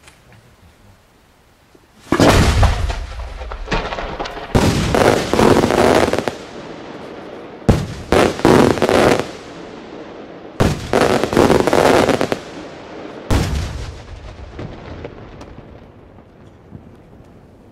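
Large cylinder fireworks shell breaking overhead in a sequence of loud bangs, starting about two seconds in: five reports in about eleven seconds, each followed by a rolling echo that dies away.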